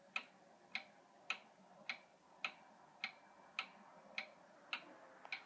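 Vintage Korean-made eight-day wind-up pendulum wall clock ticking steadily, a little under two ticks a second, as the pendulum swings back and forth.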